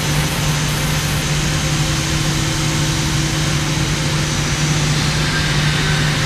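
1996 Eurotech 730-SLE CNC lathe powered up and running, a steady mechanical hum with one constant low tone and no cutting or tool changes heard.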